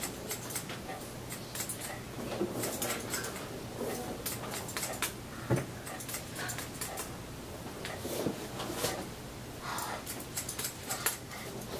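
Hair-cutting scissors snipping wet hair close to the ear: many quick sharp snips at an irregular pace, sometimes in short runs, with comb strokes between them.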